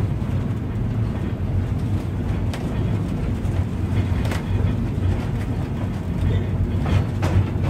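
Vintage streetcar running under power with its controller in the fifth notch: a steady low rumble of motors and wheels on the rails, with a few sharp clicks.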